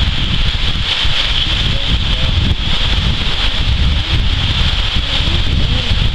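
Wind buffeting the microphone, a heavy gusty rumble, over a steady high-pitched hiss.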